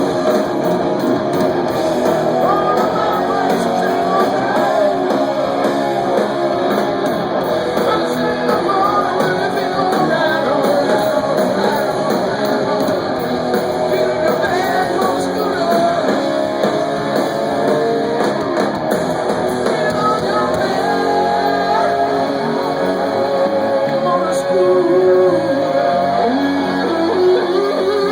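Live rock band playing, with electric guitar prominent.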